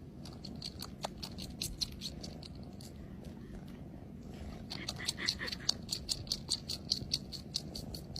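A cat purring steadily, with a run of quick sharp clicks over it.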